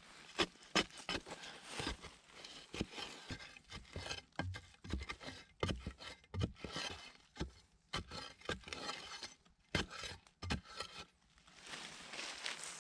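A wooden-handled digging tool striking and scraping into dry, crumbly soil while digging out a tarantula burrow, with dry leaves crackling: irregular knocks and scrapes, some in quick runs.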